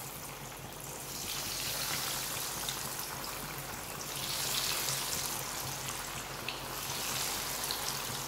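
Breadcrumb-coated chicken cutlets sizzling as they deep-fry in hot oil, a steady crackling hiss that swells a few times as more cutlets are lowered into the oil.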